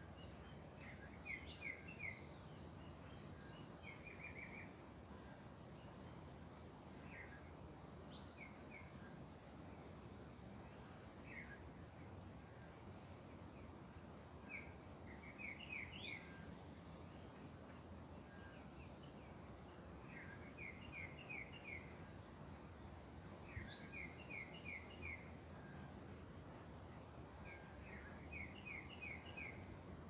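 Small birds singing over the steady rush of a river. A short phrase of four or five quick, even notes recurs every few seconds, with thin, high trills in between.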